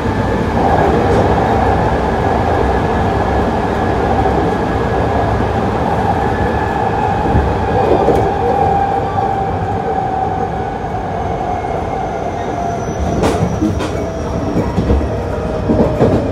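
Hankyu 8000 series electric train with Toshiba GTO-VVVF inverter control, heard running from inside the car: a steady rumble of wheels on rail with the motor and inverter whine, which slides slowly lower over the second half. A few sharp rail clicks come near the end.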